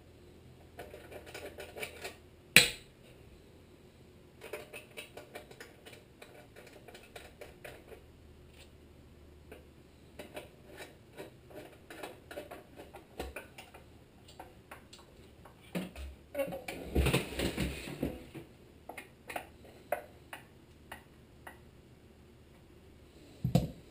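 Small metal clicks, taps and clanks of hands working bolts and parts on a small engine's sheet-metal shroud, with one sharp clank about two and a half seconds in. A longer burst of clatter and scraping comes around seventeen seconds in, as the engine is turned around on the workbench, and another knock near the end.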